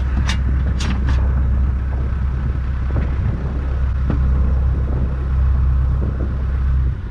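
Boat engine running steadily with a deep rumble, dropping away just before the end; three sharp knocks sound in the first second or so.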